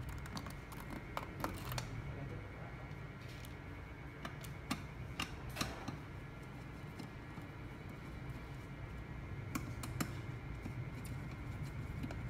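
Scattered light clicks and taps of hands and a screwdriver handling the plastic and metal parts of a speaker being taken apart, a few seconds apart, over a steady low hum.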